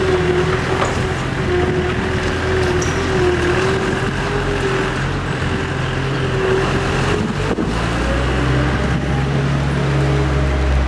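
Parked heavy truck's engine running steadily: a constant low rumble with a steady hum above it, amid city street traffic.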